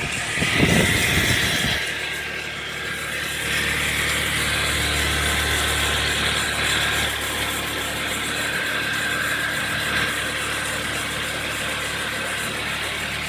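Ford Mondeo MK3's 1.8 SCi direct-injection four-cylinder petrol engine on a cold start. It runs unevenly for about the first two seconds, then settles into a steady idle.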